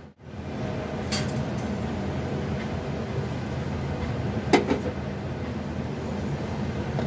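Steel kitchenware clinking over a steady low hum: a light click about a second in and a sharper metallic clink about four and a half seconds in.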